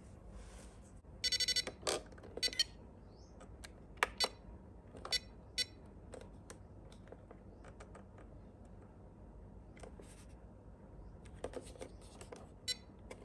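A rapid string of short electronic beeps about a second in, a shorter beep burst soon after and another near the end, between scattered small clicks and taps of parts and tools being handled.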